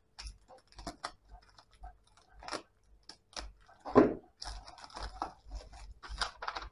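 Clear plastic mailer bag crinkling and crackling as it is slit open with a folding knife and pulled apart by hand, a run of short sharp crackles with one louder thump about four seconds in.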